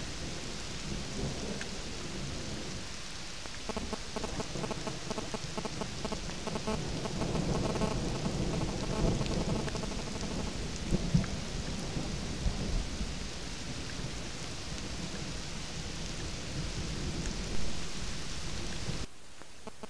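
Steady rain falling and pattering on leaves and the wet ground, with a few louder low rumbles and knocks through the middle. It cuts off suddenly near the end.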